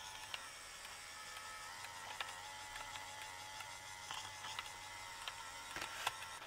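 A small electric motor whirring faintly and steadily in a slightly wavering whine, with a few light clicks, one about two seconds in and two near the end.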